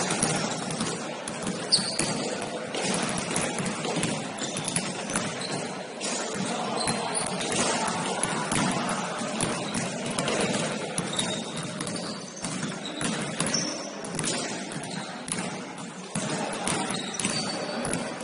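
Basketball game sounds in a gym: the ball bouncing on the court with many short knocks, sneakers squeaking in brief high chirps several times, over a constant din of players and onlookers.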